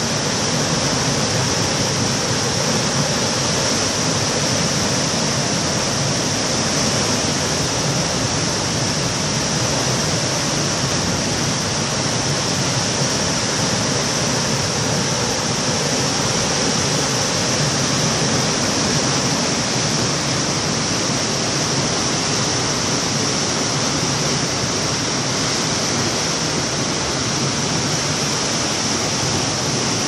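Turbulent canal water rushing out through the sluice gates of a regulator and churning below them: a loud, steady rushing noise with no change.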